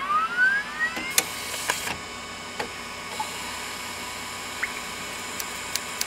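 Sound effects for an animated logo intro: rising whistling glides in the first second, a few sharp clicks, then a steady hiss with light ticks near the end.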